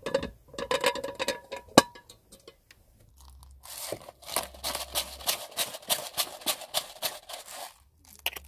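Metal clinks and scrapes as food is tipped and scraped out of a non-stick Ridge Monkey pan onto a plate, some strikes ringing briefly. About three and a half seconds in comes a run of rapid, even crunching strokes, about six a second, lasting some four seconds.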